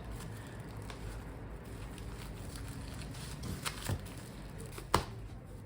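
Bamboo sushi mat being rolled and pressed around a sushi roll: soft rustling handling with a few light clicks of the bamboo slats, the sharpest one about five seconds in.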